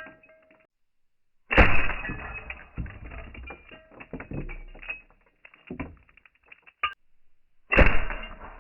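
Glass shattering under pellet hits from a Sig Sauer 1911 CO2 air pistol: two sudden sharp cracks about six seconds apart, each followed by a few seconds of clattering, tinkling shards.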